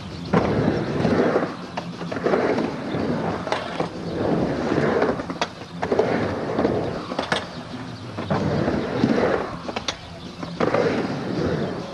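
Skateboard wheels rolling back and forth across a backyard ramp, a rumble that swells and fades every second or two as the skater rides up and down the walls. A few sharp clacks come from the board and trucks as the skater turns at the top.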